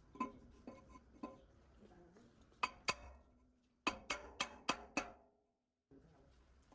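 Sharp metallic taps and clinks of tools on metal parts, each ringing briefly: three spaced strikes, a quick pair, then five in quick succession, before the sound cuts out for a moment.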